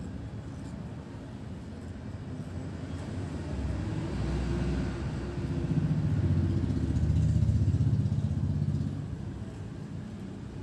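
Low engine rumble of a passing motor vehicle, swelling from about a third of the way in, loudest past the middle, and fading again near the end.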